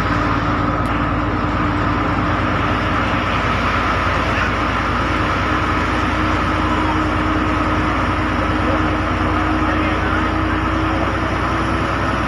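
Bus engine running steadily under way, heard from inside the cabin, a constant drone with a steady hum over road noise.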